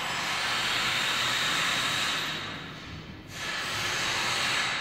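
Loud, even hiss of rushing air in two long swells, dipping briefly about three seconds in.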